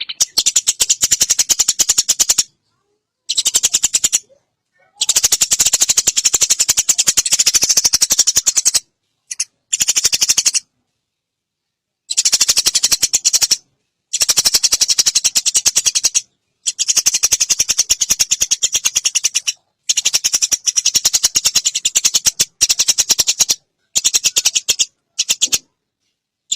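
Eurasian tree sparrows chattering: rapid runs of sharp chirps in bursts of one to four seconds, broken by short silences.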